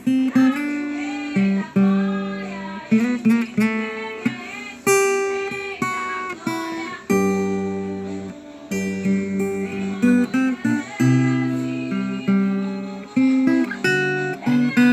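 Tagima electro-acoustic guitar played solo in a slow, calm style: plucked dissonant chords and octave lines, each note ringing out and fading before the next.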